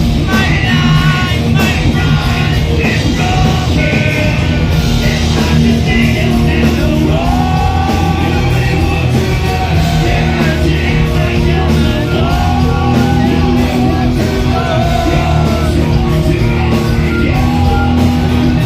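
Rock song played loud: a dense full-band mix with heavy guitars and bass, and sung and yelled vocals.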